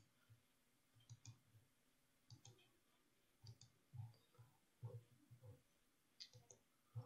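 Faint computer mouse clicks, a few at a time in small clusters about once a second, over a quiet room.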